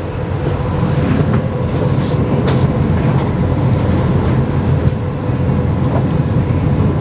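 Steady low rumble and hum inside a Las Vegas Monorail car as it draws up and stands at a station platform, with a faint steady tone and a few light clicks over it.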